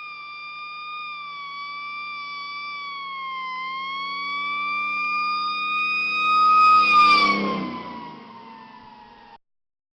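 Fire truck driving by with its siren wailing, a slow rise and fall in pitch over the engine's hum. It grows louder and, about seven seconds in, passes close, dropping in pitch as it moves away. It fades, then cuts off abruptly shortly before the end.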